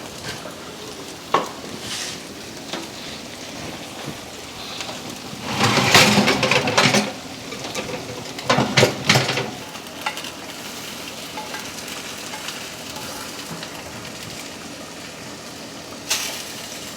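Food sizzling in a pan on the stove, with scattered light clicks and two louder spells of kitchen clatter about six and nine seconds in.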